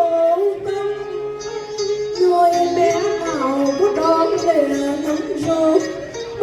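Cải lương (Vietnamese folk opera) music: a slow melody with sliding, ornamented notes over accompaniment.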